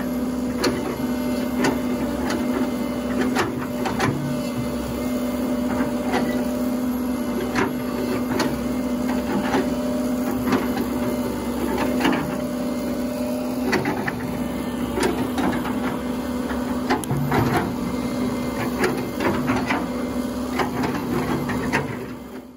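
Excavator running under a work test: its freshly rebuilt Isuzu 4JJ diesel engine and hydraulic pump give a steady tone, with irregular clicks and knocks as the boom and bucket are worked. The sound fades out near the end.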